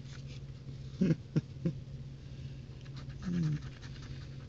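A coin scratching the coating off a scratch-off lottery ticket in quick, even strokes, starting about three seconds in. Before that, a few short low vocal sounds over a steady low hum.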